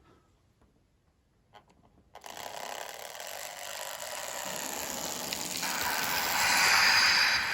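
Traintech sound capsule playing a diesel locomotive engine start-up through its small speaker, cutting in suddenly about two seconds in and building steadily louder.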